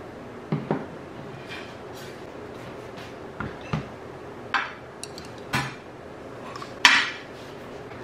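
Ceramic dishes and tableware being set down on a table: a series of separate clinks and knocks, the loudest near the end.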